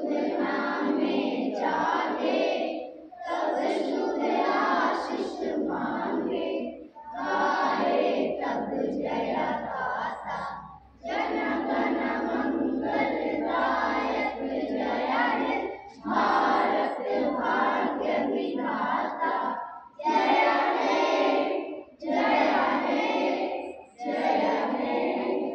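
A large group of schoolchildren singing together in unison, a prayer-style chorus sung in short phrases with brief pauses between them.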